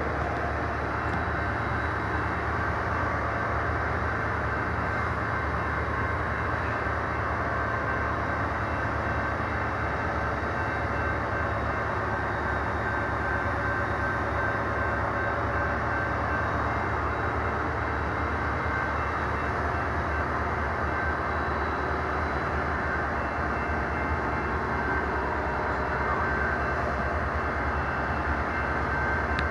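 Siemens SC44 Charger diesel locomotive idling while its passenger train stands at the station: a steady low rumble with a few constant high whines over it.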